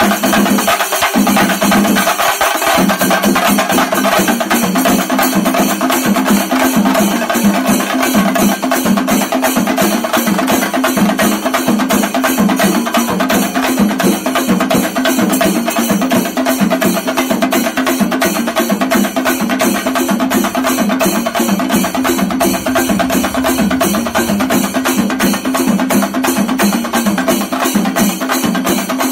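Festival drum ensemble playing fast, even strokes on barrel drums, with a steady held tone running beneath, throughout.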